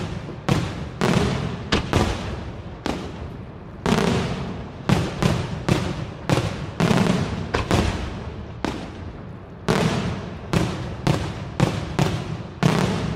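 Aerial shells of a daytime fireworks display bursting overhead in an irregular run of sharp bangs, often one to two a second with a couple of short lulls. Each bang trails off in a rolling echo.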